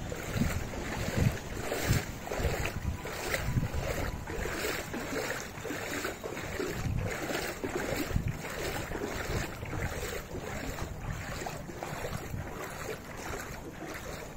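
A person wading through knee-deep floodwater, the water swishing and sloshing with each stride in a steady rhythm of roughly one and a half steps a second, with wind rumbling on the microphone.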